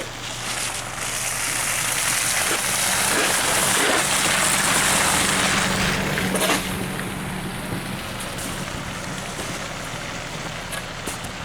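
Motor vehicle engine running with a steady low hum, under a broad rush of noise that swells about a second in and fades after about six seconds.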